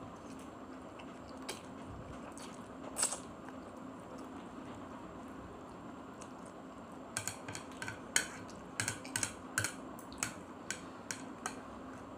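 A person eating instant noodles with chopsticks: mostly quiet at first, then a quick run of sharp eating clicks from about seven seconds in, over a steady low hum.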